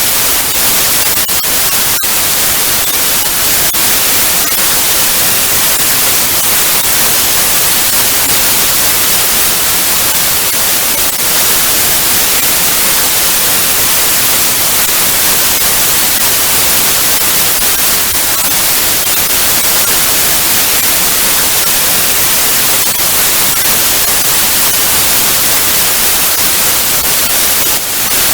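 Analogue TV static: loud, steady hiss, brightest in the high end, with faint crackling ticks scattered through it.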